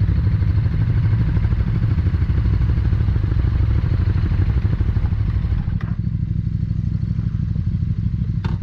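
KTM 1290 Super Duke R V-twin engine running at low revs while the bike creeps along at walking pace, a steady low throb. The sound thins about six seconds in, and there is a sharp click near the end.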